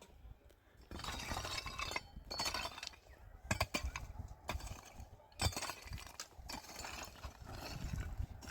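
Irregular clinking and clattering knocks of hard objects, with noisy scraping between them.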